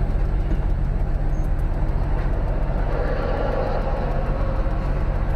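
Steady low engine and road drone heard inside a truck's cab, with a rush of noise swelling about three seconds in.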